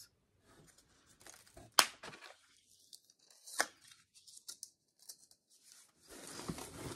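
Makeup packaging being handled: quiet scattered clicks, a sharp tap about two seconds in and another near the middle, then a rustling, tearing sound of packaging near the end as the next item is taken out.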